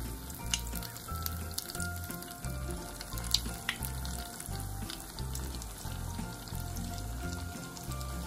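Hot oil sizzling and crackling around a sardine spring roll deep-frying in a pot, with a few sharp pops. Background music with a bass line plays underneath.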